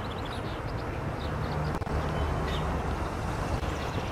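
Outdoor background noise: a low, steady vehicle rumble that swells for a couple of seconds, with faint, short, high chirps over it.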